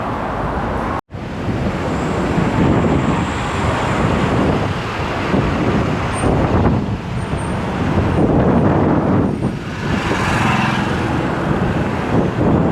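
Wind rushing over the microphone mixed with street traffic noise during an electric scooter ride, with a swell of passing-vehicle noise near the end; the audio cuts out for an instant about a second in.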